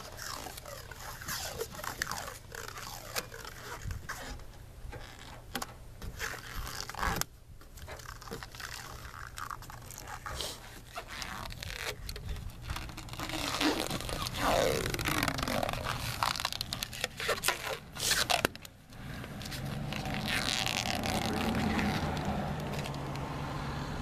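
Cured Plasti Dip being scraped and peeled off a pickup truck's brake-light lens and trim edges: a long run of irregular crackling scrapes as the blade drags and the rubbery film tears away.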